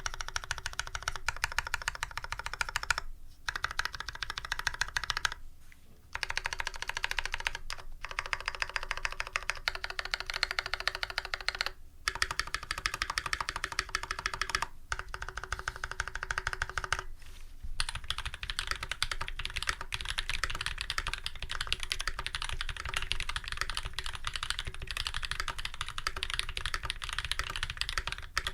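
Fast, continuous typing on a custom mechanical keyboard with lubed Holy Panda tactile switches, a brass plate and GMK keycaps, broken by a few brief pauses. Past the halfway mark the clicks turn brighter.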